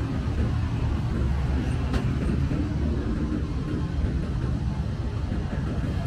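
Road traffic on a busy city street: cars and a bus passing, giving a steady low rumble.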